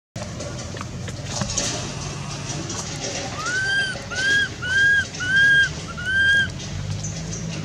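Baby long-tailed macaque crying: five short, high, arched cries in quick succession, starting about halfway through.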